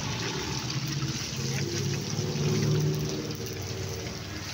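Beaten egg frying in a wok of hot oil, a steady sizzle and bubbling. A low drone comes in underneath about a second and a half in.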